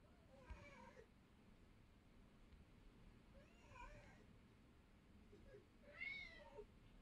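Domestic orange tabby cat meowing faintly three times, with the last call, about six seconds in, the loudest.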